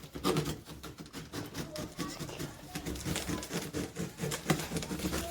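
Cardboard carton of a home-theater speaker set being cut open with a knife and handled: a rapid run of scratchy clicks and rustles of cardboard and packing.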